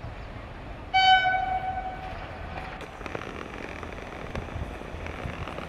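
Indian Railways WAP-7 electric locomotive's horn sounding one high note about a second in, lasting about a second, the loudest thing here. Then the rumble of the oncoming train builds, with scattered clicks from the wheels on the rails.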